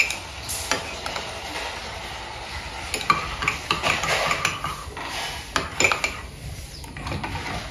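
A metal spoon stirring a drink in ceramic mugs, scraping round and clinking against the mug walls several times.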